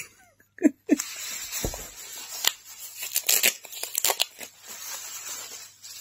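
Bubble wrap crinkling and crackling as a bubble-wrapped package is pulled open by hand, with tearing of the wrapping. It starts about a second in and keeps going in irregular crackles.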